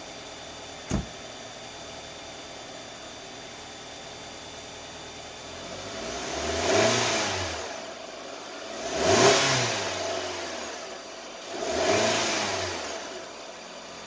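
A car door shuts with a thump about a second in, then the Nissan sedan's engine idles and is revved three times, each rev climbing and falling back to idle. The revs load the alternator during a headlight dim test.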